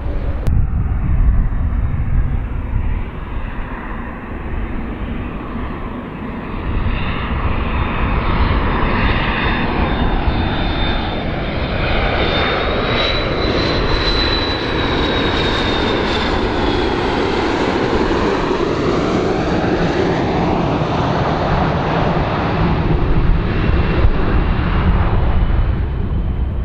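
McDonnell Douglas MD-80-series jet airliner on landing approach, its rear-mounted jet engines passing the microphone. A steady low rumble builds to a peak about halfway through. A high whine rises and then drops in pitch as the aircraft goes by.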